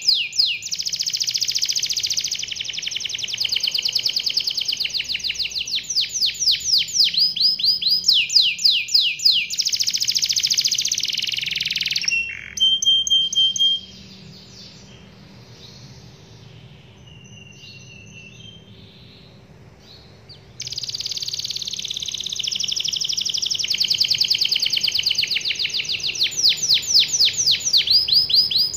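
Yellow canary singing long rolling phrases of rapid repeated high notes. About halfway through it falls quiet for roughly seven seconds, with only faint chirps, then starts rolling again.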